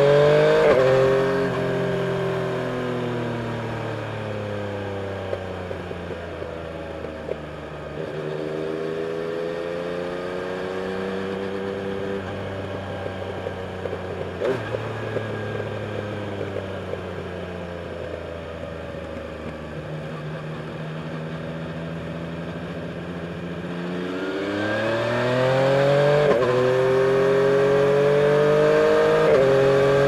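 Yamaha Tracer 900's three-cylinder engine heard from the rider's seat. It pulls hard at the start, then runs lighter and quieter through the middle with gentle rises and falls. From about three-quarters of the way in it accelerates hard again, its pitch climbing and dropping sharply at each of two upshifts.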